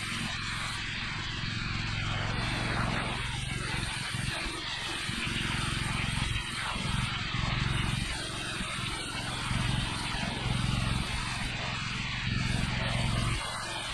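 Gas-engine pressure washer running steadily, with the hiss of its water spray; the engine hum swells and eases in several stretches.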